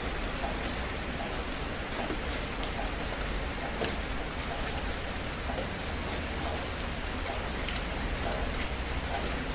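Steady rainfall: a constant hiss with many separate drop hits ticking sharply through it and a low rumble underneath.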